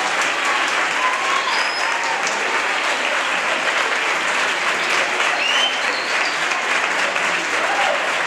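Audience applauding steadily, with a few short whoops rising over the clapping.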